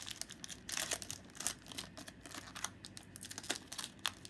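Foil Yu-Gi-Oh booster pack wrapper being torn open and crinkled, a run of irregular sharp crackles.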